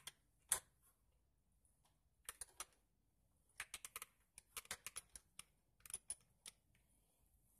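Faint, irregular clicks coming in quick clusters, mostly in the second half, as a half-inch wrench is worked on the hot oil drain plug of a riding lawn tractor's engine.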